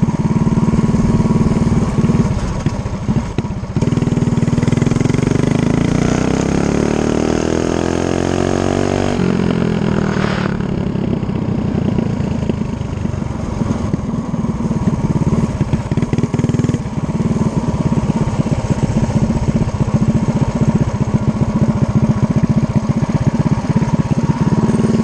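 Coleman CT100U mini bike's Predator 212-based single-cylinder engine running hard at speed. About four seconds in, its pitch climbs steadily for five seconds, then drops suddenly, and it carries on at high revs with wind noise.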